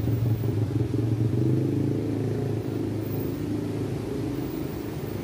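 Steady low rumble of a motor vehicle's engine running nearby, easing off slightly toward the end.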